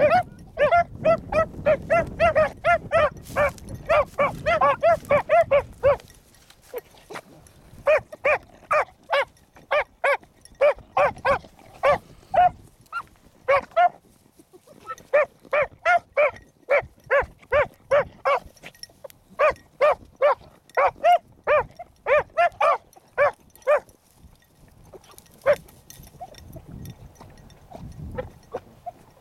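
Beagle pups baying on a rabbit's scent trail: short, repeated yelps about three a second in runs with a few brief pauses. Wind rumbles on the microphone under the first six seconds and again near the end.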